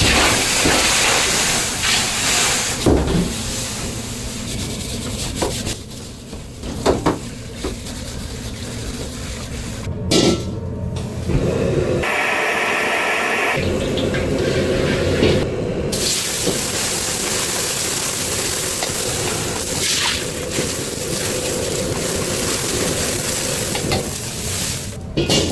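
Water hissing and sizzling in a hot Chinese wok as it is scrubbed and rinsed, with a few sharp metal knocks along the way.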